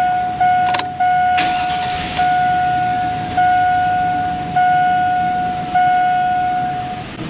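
A GMC Sierra's dash warning chime dings steadily, about once every 1.2 seconds. There is a click about three-quarters of a second in, then a brief rush of noise a little over a second in as the engine is cranked and starts.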